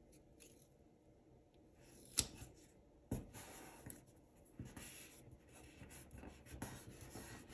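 Faint paper handling as a sticker is placed on a planner page: a sharp tap about two seconds in and another a second later, then soft rustling and fingertips rubbing the sticker down onto the paper.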